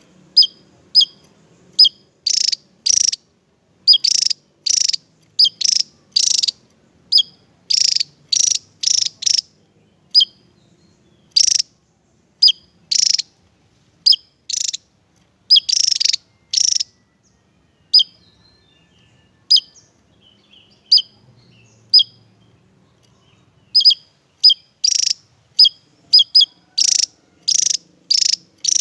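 Javan tesia singing: a run of short, high, clear notes repeated about one to two a second, with a quieter spell of thin, faint notes in the middle before the louder notes return.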